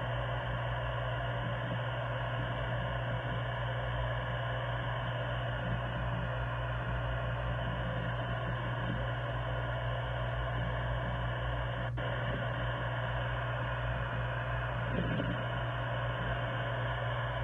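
Steady low hum under a constant hiss, with one faint click about twelve seconds in.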